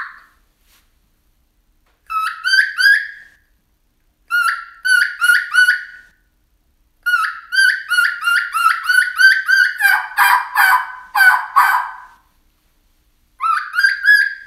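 Three-reed batwing diaphragm turkey mouth call played to imitate a hen turkey: short runs of yelping notes, then a long, fast run that turns lower and raspier toward its end, and one more yelp near the end.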